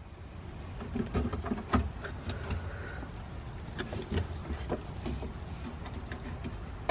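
Scattered light clicks and taps of plastic push-pin fasteners being handled and pressed into a plastic trim panel, over a low steady rumble.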